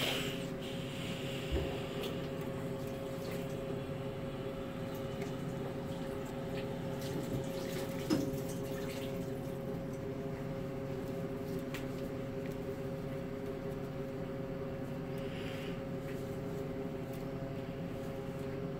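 Steady electrical hum of equipment, holding several fixed pitches, with a few faint taps and handling sounds.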